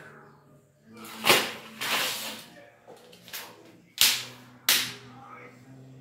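Handling noise on a metal lighting track rail as a plastic fitting is pushed into its slot: a sharp knock about a second in, a scraping sound around two seconds, and two sharp clicks about four and five seconds in.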